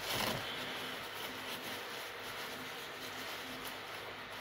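Paper tissue rustling and crinkling in the hands as it is wiped over a lip-colour tube, with a short louder crumple right at the start and softer handling noise after.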